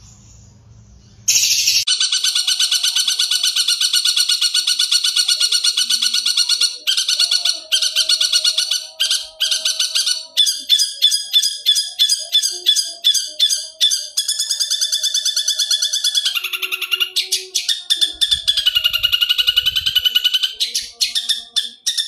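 Long-tailed shrike (cendet) singing a loud, fast, varied song. It starts abruptly about a second in and runs without pause, with rapid trills and quickly repeated notes that change pattern several times.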